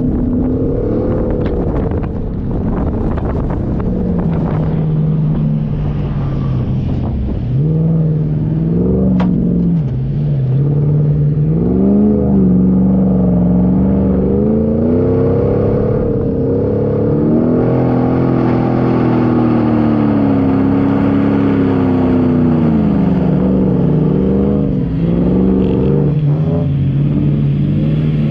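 A 4x4's engine, revving up and down again and again: its pitch rises and falls every few seconds with short steady stretches in between, as the throttle is worked over sand.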